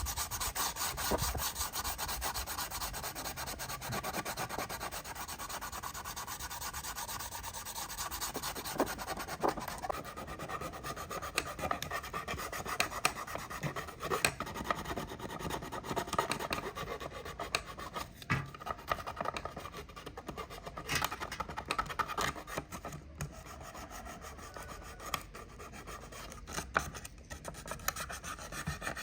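Hand sanding or rasping: rapid, even abrasive rubbing strokes at first, becoming looser and more irregular with occasional sharper scrapes later.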